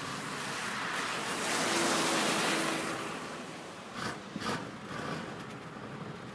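1990 Cadillac V8 running at cold idle, its exhaust rushing from the tailpipe. A broad rushing noise swells loudest about two seconds in, and two sharp knocks come about four seconds in. The car has a blown head gasket.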